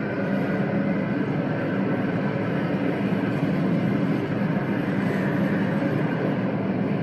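Steady rushing wind of a tornado from a film soundtrack, played through the room's speakers.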